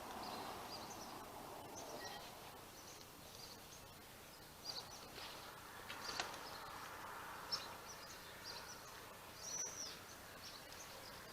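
Faint birds chirping now and then, short high calls scattered over a low background hiss.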